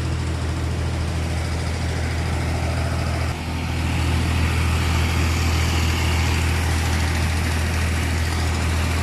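A vehicle engine runs steadily with a low hum. About a third of the way in there is a brief dip, after which it runs slightly louder.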